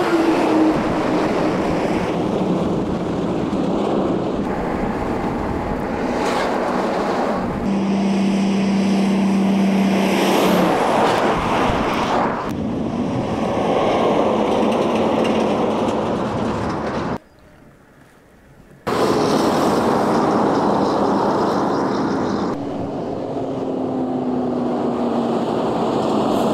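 Road trains, heavy multi-trailer trucks, driving past on a highway: diesel engines running with the rumble of tyres and trailers, over several separate passes. Near the end one truck's engine note falls in pitch as it goes by, and there is a brief much quieter gap in the middle.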